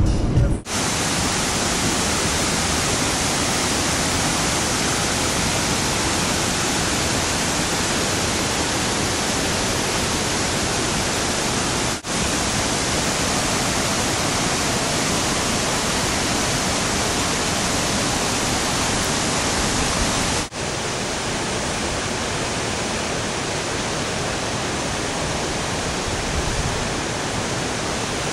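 Steady rush of a river's rapids and small waterfalls pouring over rock ledges, a constant even roar. It cuts out briefly twice, near the middle and about two-thirds of the way through.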